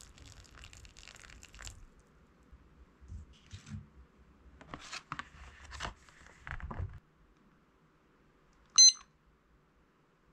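Water pouring into an instant cup ramen bowl for the first couple of seconds, then the paper lid and packaging crinkling as it is pressed down over the cup. Near the end a single short electronic beep from a Tanita digital kitchen timer as it is started for the five-minute wait; the beep is the loudest sound.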